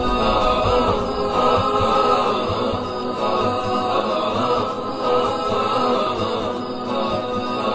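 Background music: several voices chanting together, holding long notes.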